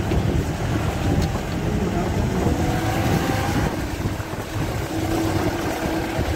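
Engine and tyres of a jeep driving along a wet gravel road, heard from its open side window as a steady low rumble, with wind buffeting the microphone.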